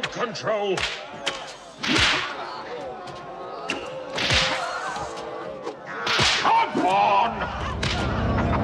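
Whip lashes in a fight: three big whip swishes and cracks about two seconds apart, with smaller snaps and knocks between them. A low rumble comes in near the end.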